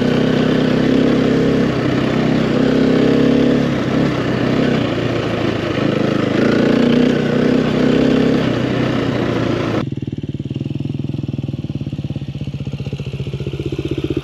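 Dirt bike engine running while riding, mixed with wind noise, its pitch rising and falling with the throttle. About ten seconds in, the wind noise cuts off abruptly and a quieter, evenly pulsing engine is heard at low revs, while an engine note falls in pitch near the end.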